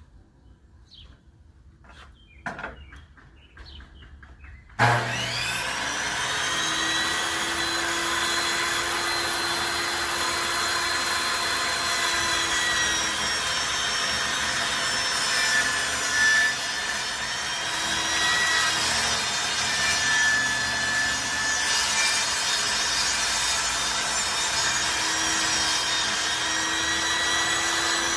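A few light knocks, then about five seconds in an electric power saw starts up and runs steadily, cutting through wood with a steady whine.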